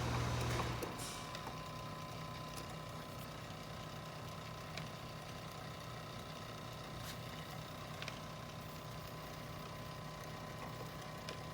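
Continuous inkjet printer running with its ink system switched on: a loud low hum cuts off under a second in, leaving a steady quieter machine hum with a thin high tone and a few faint clicks.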